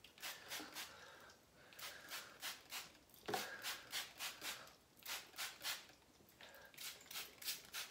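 Plastic trigger spray bottle spritzing water onto wig hair: quick squirts of mist, about three or four a second, in short runs with brief pauses between.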